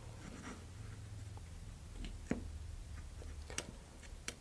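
Faint handling sounds of hands tying Kevlar cord onto an electronics-bay sled: light rustling and a few small clicks and taps, the sharpest about two seconds in.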